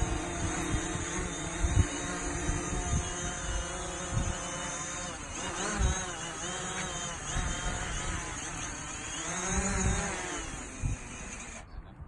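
Quadcopter drone's propellers whining steadily, the pitch dipping and rising a couple of times as the motors change speed, with wind buffeting the microphone.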